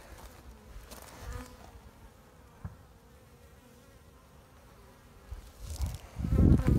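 Honeybees buzzing around the hive entrances, a faint steady hum. Near the end a loud low rumble on the microphone.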